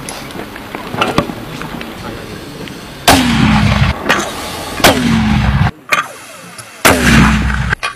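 Hand-held light mortar firing three times, about two seconds apart, starting about three seconds in, after a few lighter knocks. Each shot is a sharp, loud bang that trails into a short ring sliding down in pitch.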